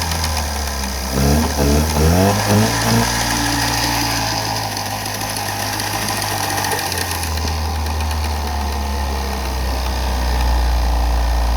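Outboard motor running after a tune-up with new spark plugs, revved in several quick rising throttle blips about a second in, then settling into a steady idle that grows a little louder near the end.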